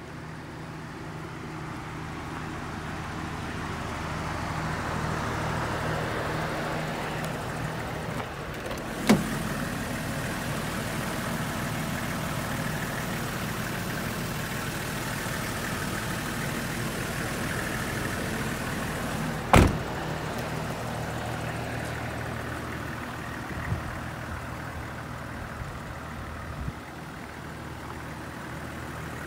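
Toyota Coaster's 1HZ inline-six diesel idling steadily, with two sharp bangs of the bus door being shut, about nine and twenty seconds in.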